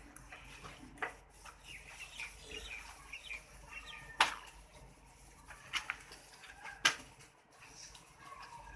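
Chickens clucking, with sharp knocks about one, four and seven seconds in. The knocks at four and seven seconds are the loudest.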